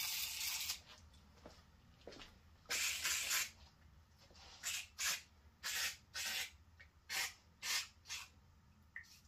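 Aerosol can of penetrating oil hissing in short squirts through its straw into the cylinders of a rust-seized engine block. Two longer sprays come near the start, then a run of about eight quick squirts in the second half.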